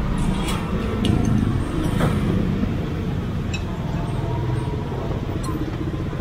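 Street traffic running steadily past, mostly motor vehicles, with a few short clicks scattered through.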